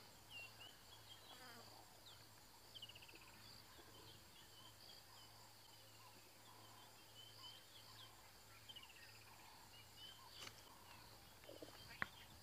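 Faint bush ambience: scattered short bird chirps over a steady high insect drone and a low hum, with a single click near the end.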